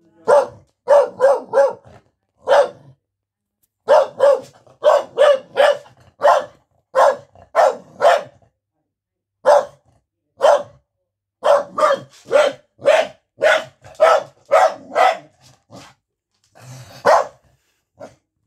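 Corgi puppy barking at visitors: sharp, high barks in quick runs of several at a time, around thirty in all, with two short pauses.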